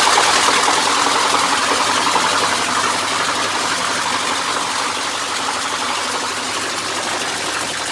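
Whirlpool top-loading washing machine spinning with a loud, harsh, dense rattling noise that eases slightly over the seconds. The cause turned out to be a white-gold chain caught under the pulsator inside the drum.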